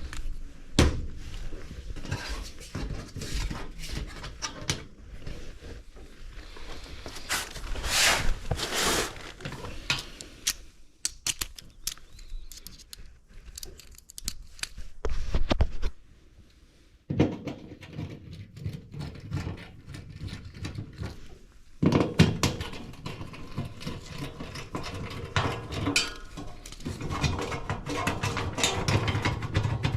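Irregular clicks, knocks and rustling of hands working on an HVAC unit that has just been shut off, with a brief lull about 16 seconds in and a sharper clatter about 22 seconds in.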